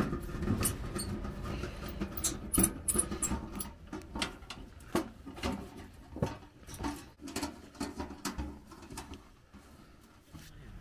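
Sheet-metal parts of a folding tent wood stove clinking, tapping and scraping as they are handled and fitted together: a run of irregular sharp clicks, thinning out near the end.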